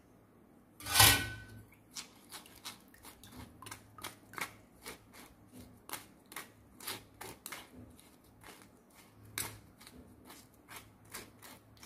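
Steel spoon scraping and pressing a wet paste of ground cardamom and black pepper through a plastic tea strainer over a steel pot of milk: a sharp clatter about a second in, then a run of short scrapes and clicks, two or three a second.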